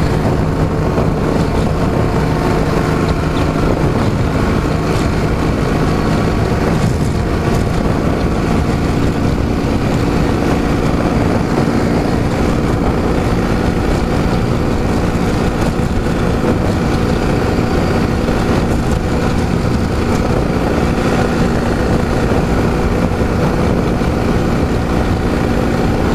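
Ural motorcycle's boxer-twin engine running steadily under way, over a dense, even rush of wind and road noise.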